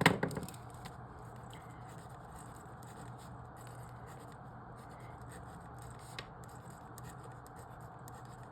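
An eraser rubbing out pencil marks on a paper puzzle grid: soft, faint scratching and rubbing with small ticks of paper handling, after a short knock at the very start.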